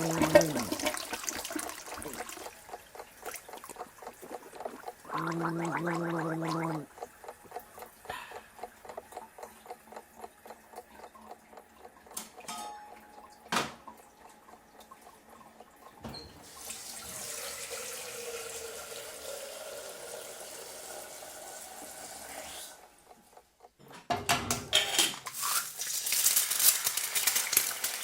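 A sequence of household sounds. A short steady buzzing tone comes twice, then a run of evenly spaced short strokes. Then water runs for about six seconds, and near the end a dense crackle like frying starts.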